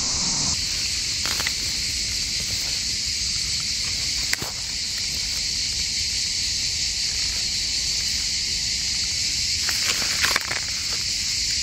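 Cicadas buzzing steadily in a high, unbroken chorus. A few brief clicks and rustles sound over it, one at about a second in, one near four seconds and two near ten seconds.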